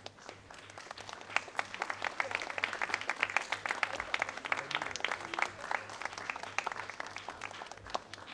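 Audience applause: many hands clapping, swelling over the first second and dying away near the end.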